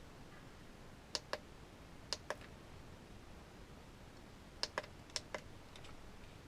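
Short, sharp plastic clicks in pairs, a few times over several seconds, as small buttons or switches are pressed while a mini speed controller is set into normal mode.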